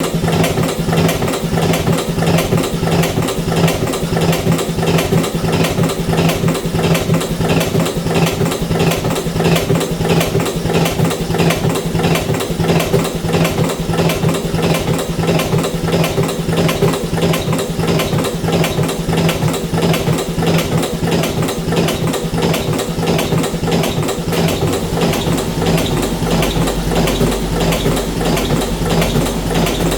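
Electric cigarette filling machine running: a steady motor hum with a fast, even clatter of its filling mechanism. A deeper hum joins near the end.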